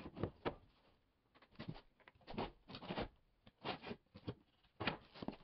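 Carpenter's pencil scratching short strokes across a hardwood floorboard, marking cut lines, in a series of brief strokes with pauses between them.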